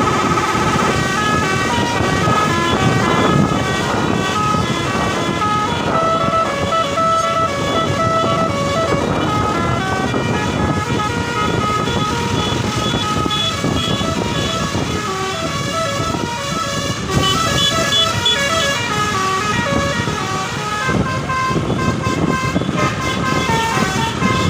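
Indonesian bus telolet horn playing Pakistani-style tunes, a continuous melody of short notes stepping up and down in pitch, one tune running into the next.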